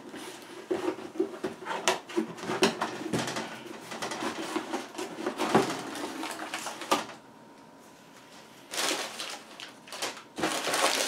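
Cardboard box being opened by hand: the flaps scraping and crumpled magazine-paper packing rustling, in a run of quick crackles and knocks. It pauses about seven seconds in, then the rustling starts again near the end.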